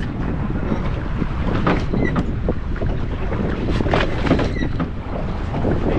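Steady wind rumble on the microphone aboard a boat at sea, with scattered short knocks.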